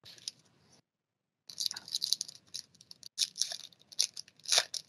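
Foil wrapper of a trading-card pack crinkling and crackling in the hands as it is handled and opened: a brief crackle at the start, then a steady run of irregular crinkles from about a second and a half in, loudest near the end.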